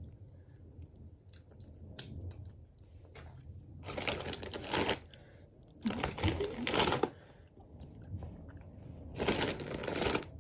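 Crunchy Takis tortilla chips crunching in three loud bursts of about a second each, with faint scattered clicks between them.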